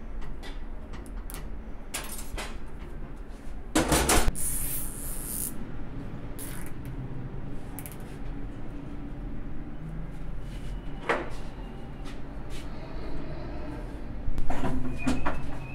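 Hand work on a driveshaft's CV-joint boot: scattered clicks and metal clinks from the band clamp and hand tools, with a louder clatter about four seconds in and again near the end.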